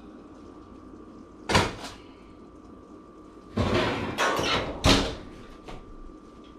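A sharp knock about a second and a half in as a foil-covered ceramic baking dish is set down on an electric coil stovetop. Then a run of clattering knocks in the second half as the oven door is pushed shut.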